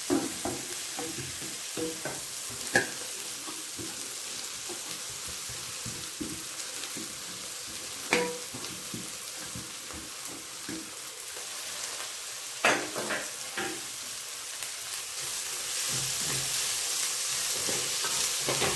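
Chopped vegetables sizzling in hot oil in a non-stick kadhai as they are tipped in and stirred with a wooden spatula. A few sharp knocks of the spatula come about 3, 8 and 13 seconds in, and the sizzle grows louder near the end.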